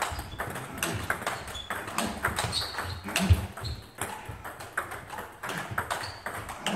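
Table tennis balls being hit back and forth in knock-up rallies, a quick, irregular run of sharp clicks as the ball strikes bats and table, from more than one table at once. A louder, dull thump about halfway through.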